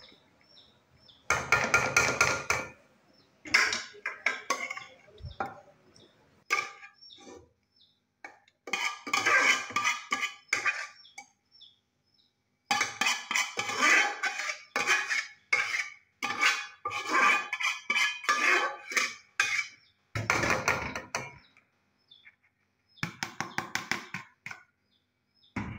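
A metal spoon scraping and knocking against a metal cooking pot and pan as boiled rice and chicken masala are spooned in layers into the pot. The clinks and scrapes come in quick runs of many strokes, broken by short pauses.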